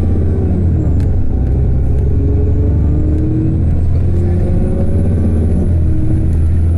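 Cummins ISB 6.7 straight-six diesel of an Alexander Dennis Enviro400 double-decker bus pulling hard, its engine note rising, dropping and rising again as the ZF Ecolife six-speed automatic, set to power mode, changes up. A faint high whine climbs over it about halfway through.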